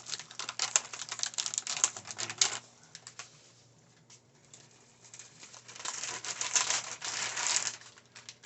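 Frozen broccoli florets rattling and clattering, two bursts of rapid hard clicks a few seconds apart.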